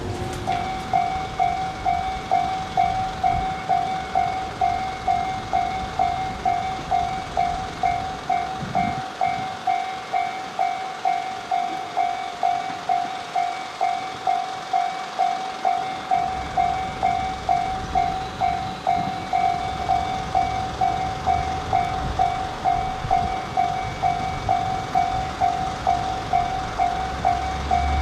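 Railway level-crossing warning bell ringing at an even pace of about two strikes a second. This is the signal that a train is approaching. Near the end the low engine rumble of an approaching diesel railcar grows underneath it.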